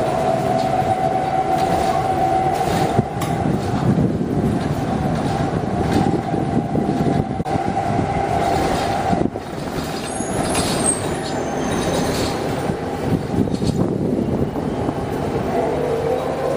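Electric traction motor whine from a passing transit vehicle: a high tone rises, holds steady for about nine seconds, fades, and rises again near the end, over a low rumble of running gear. A faint high squeal comes about ten seconds in.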